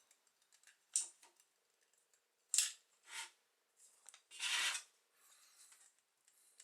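Boilie extruder gun being worked by hand to squeeze out dough sausages: a few short clicks and scrapes, with one longer rasping scrape about four and a half seconds in.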